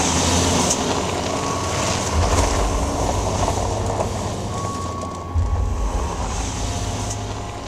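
Volkswagen van driving past on a loose gravel mountain track, its tyres crunching over the stones. Deep low booms come in about two seconds and again about five seconds in.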